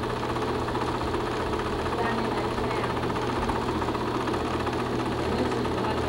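Film projector running: a steady rapid mechanical clatter over a low hum.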